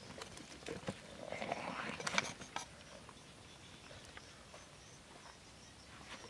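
Steamed eels and their cooking liquid tipped out of a bamboo tube onto a banana leaf: wet pouring and splattering with a few taps in the first two and a half seconds, loudest a little after two seconds, then only faint background.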